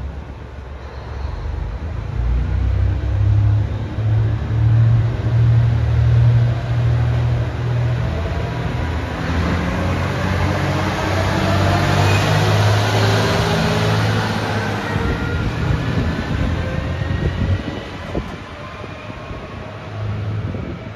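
ET122 diesel railcar running past on the station track, its diesel engine droning low. A rising whine comes in around the middle as it moves on.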